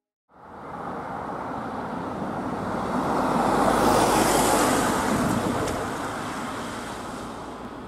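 A car driving past on the road, its tyre and engine noise swelling to a peak about halfway through and then fading away.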